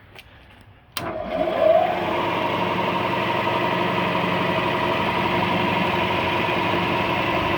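Lagun FTV-2 vertical milling machine switched on with a click about a second in, coming up to speed with a brief rising whine, then running steadily.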